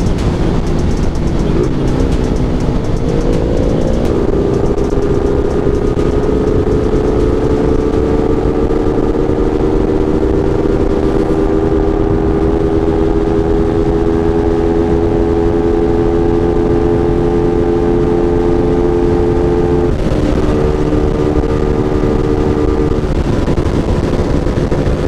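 Suzuki Raider 150 Fi single-cylinder motorcycle engine running on the road, heard with heavy wind rush over the microphone. The engine note rises as it accelerates in the first few seconds, holds steady, then breaks and steps down briefly about twenty seconds in.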